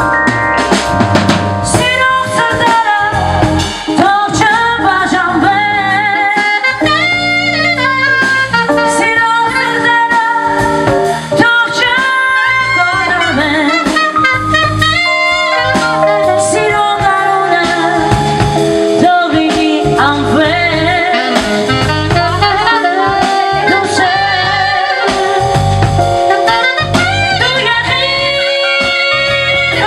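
Live band playing an instrumental break in an Armenian pop ballad: a wavering lead melody over drum kit and bass.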